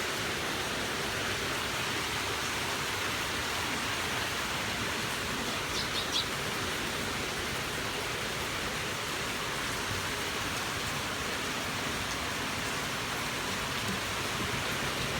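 Steady rushing noise with no change in level, with a few short high chirps about six seconds in.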